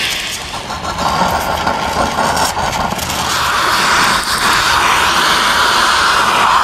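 Multiplaz 3500 plasma welder torch running steadily with a loud hissing rush as it welds a mild-steel plate onto a cast-iron band saw arm. It grows louder about halfway through.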